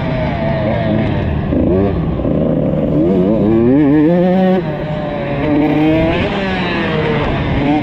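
Motocross bike engine heard close up from on the bike, revving up and down as the rider accelerates over the dirt track. The pitch climbs for a couple of seconds, drops sharply about four and a half seconds in as the throttle closes or a gear changes, then rises again.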